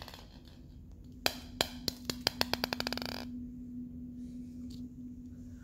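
Small blue plastic ball bouncing on a tile floor: a run of bounces that come quicker and quicker until the ball settles about three seconds in.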